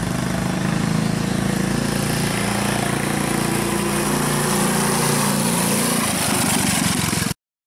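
Single-cylinder Briggs & Stratton 900 series engine on a Motovox minibike, running steadily as the bike is ridden, its carburetor freshly re-jetted. The sound cuts off abruptly near the end.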